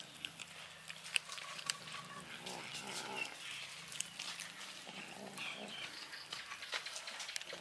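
Several cats eating fish and rice off a plate, chewing with scattered sharp crunches and clicks.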